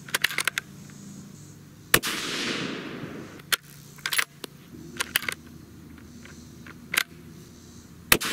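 Two shots from a .223 Remington Ruger American Gen II Predator bolt-action rifle with a muzzle brake, about six seconds apart, each followed by a rolling echo. Between them come the metallic clicks and clacks of the bolt being cycled to chamber the next round.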